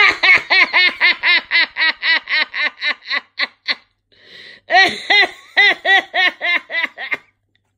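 A person laughing hard: a long run of rapid, high-pitched "ha-ha-ha" bursts, about five a second, a quick breath about four seconds in, then a second run that trails off near the end.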